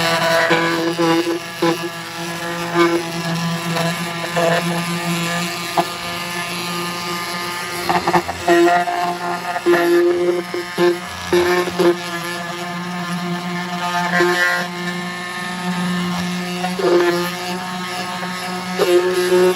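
Ryobi detail sander running with 40-grit paper, its pad scrubbing wood inside a small box. A steady buzz, with brief louder clatters now and then as it is worked into the corners.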